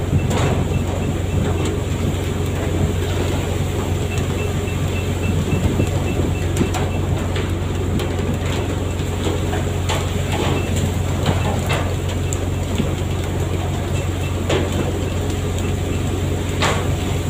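Fishing boat's engine running steadily at sea, with scattered knocks and clatter. A faint rapid beeping comes and goes.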